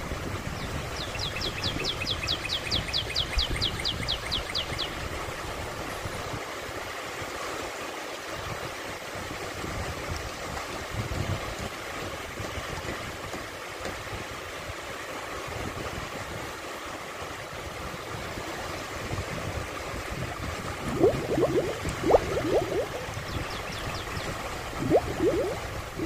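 Small waves washing and lapping over a shallow sandy beach, a steady rush of water with a low, uneven rumble underneath. A rapid high-pitched trill runs from about a second to five seconds in, and a few short rising calls come near the end.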